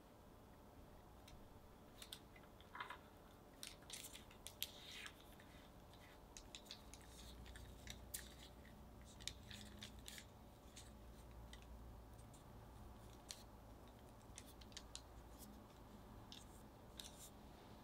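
Quiet handling of cookie dough on parchment paper: a small metal spatula easing the cut dough triangles apart, then fingers rolling a triangle into a croissant shape, heard as faint scattered ticks and soft paper rustles.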